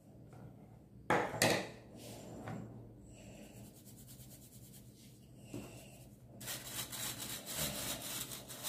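Powdered sugar being sifted through a sieve: two sharp knocks about a second in, then from about six seconds a fast, even scratching as the sieve is shaken and the sugar rubbed through the mesh.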